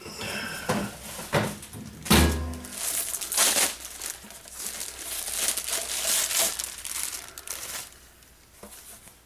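Plastic parts bag crinkling and rustling as it is handled, with a dull thump about two seconds in; the rustling dies down near the end.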